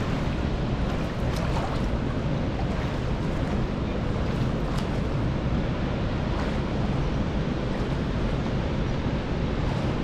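Large waterfall rushing steadily: a dense, even noise with no breaks.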